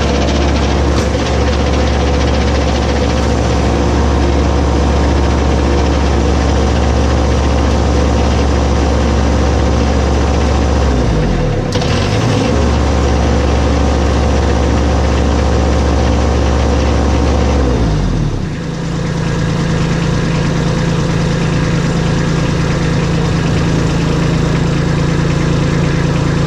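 Compact tractor engine running steadily while the front-mounted snowblower is worked up and down on the hydraulics. The engine's pitch sags briefly twice, about halfway and about two-thirds of the way through, and after the second sag it settles into a different, higher-pitched hum.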